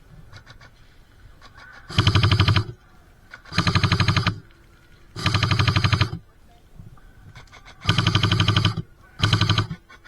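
Airsoft gun firing on full auto: five short bursts of rapid shots, loud and close, with brief pauses between them.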